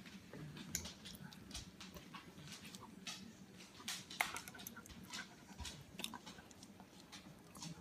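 Siberian husky licking and smacking its lips and tongue on sticky peanut butter, a run of short, irregular wet clicks.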